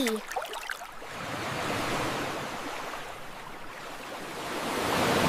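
Sea waves washing in, swelling twice: once about two seconds in and again near the end.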